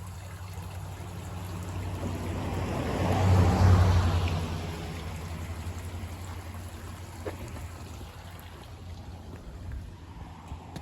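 A car drives past on the road, swelling to its loudest about three and a half seconds in and then fading away, over the steady trickle of spring water running.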